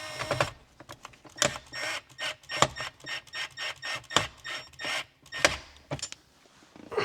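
Irregular sharp clicks and knocks, a few a second, of hand tools and hardware being worked while the mount is fastened down, stopping about six seconds in.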